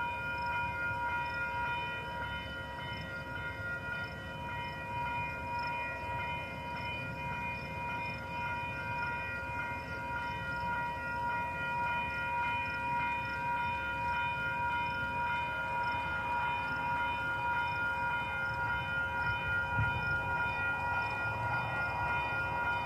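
Freight train of autorack cars rolling slowly past with a low rumble, over a steady set of high ringing tones that hold throughout.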